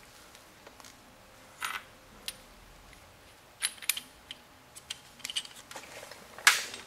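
Scattered light metallic clinks of small steel parts and hand tools being handled, a few separate taps spread out with a louder clink near the end.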